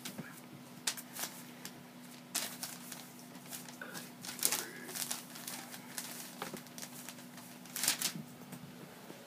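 Jack Russell puppy and Chihuahua scuffling in play on carpet: a series of short scuffs, paw scratches and crinkles of a sheet of paper under their feet, coming in uneven bursts.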